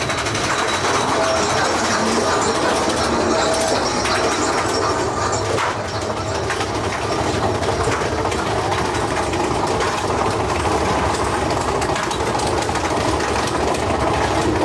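Mine-train roller coaster running along its track: a steady, loud rattle of the cars' wheels on the rails, with many small clicks.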